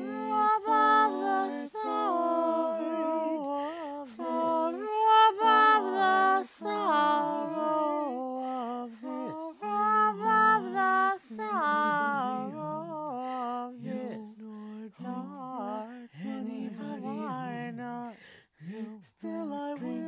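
A woman singing an Elizabethan round a cappella, several overdubbed parts of her own voice overlapping in harmony, with vibrato on the held notes.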